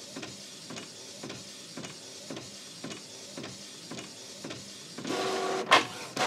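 Inkjet printer printing: steady running with a regular tick about twice a second, then a louder whir about five seconds in and two sharp clacks near the end.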